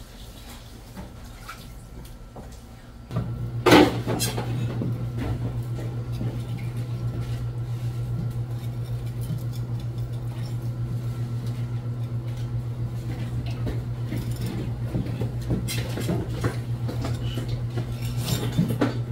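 Kitchen work sounds: a steady low hum starts about three seconds in. A sharp clatter comes just after it, and scattered small knocks of knife and dishes follow on the work counter.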